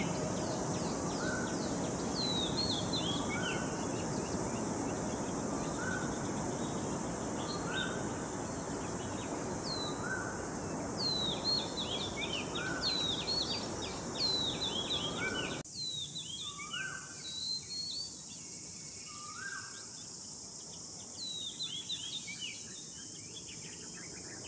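Wild songbirds calling: a short rising note repeated about every second and a half, with bursts of quick high chirps, over a steady high hiss. About two-thirds of the way through, the background noise drops suddenly, as at a cut between two field recordings.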